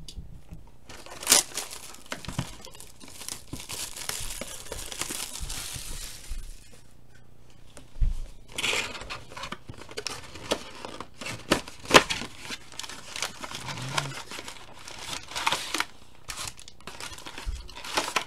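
Plastic shrink-wrap crinkling and tearing as it is stripped off a cardboard box of trading cards, with irregular crackles and a few sharper snaps along the way.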